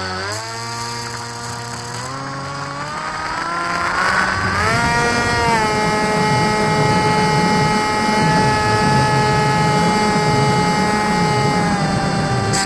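Brushless electric motor and propeller of a foam RC model plane whining as the throttle comes up for takeoff, rising in pitch over the first five seconds or so, then holding steady once airborne. A rough, fluctuating wind rush on the onboard microphone joins it from about five seconds in.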